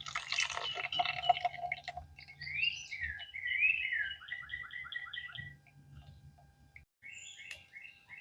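Songbirds singing: sliding whistled phrases, then a quick run of repeated notes. A burst of clicking and rattling in the first two seconds, and a faint low hum that stops about seven seconds in.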